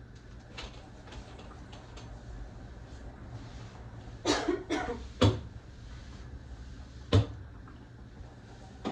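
Household handling noise: a brief rough scuffing burst about four seconds in, then two sharp knocks, one just after five seconds and one about seven seconds in.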